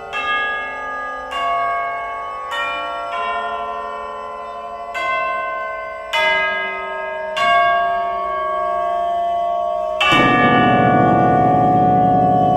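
Tubular bells struck one note at a time in a slow, uneven melody of about eight strokes, each note left ringing over the others. About ten seconds in, a louder, fuller sound with low sustained tones joins in.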